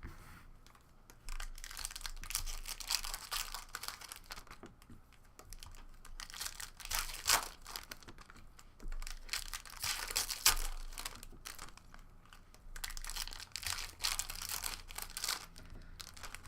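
Trading card packs being opened and handled: wrappers crinkling and tearing and cards rustling, in several bouts of rustling with a few sharp clicks.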